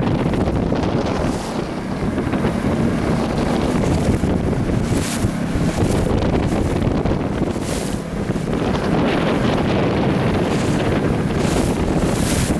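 Wind buffeting the microphone over a low, steady motor drone, with brief hissing surges a few times.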